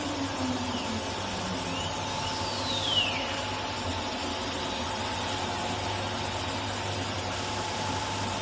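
CNC router with a carousel automatic tool changer running while it carves a pattern into a wooden board: steady machine noise from the spindle and gantry drives. A tone falls in pitch over the first two seconds, and a whine sweeps downward ending in a sharp tick about three seconds in.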